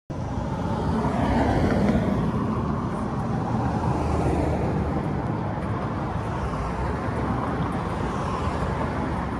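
Steady road traffic noise from cars on the street, a little louder about two seconds in.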